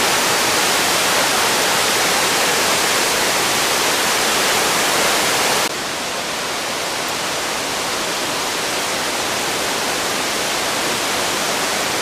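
Steady roar of Victoria Falls, an even rush of falling water. About halfway through it cuts abruptly to a slightly quieter, duller rush.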